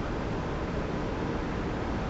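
Spaceship interior ambience sound effect: a steady, unchanging deep rumble with a hiss over it.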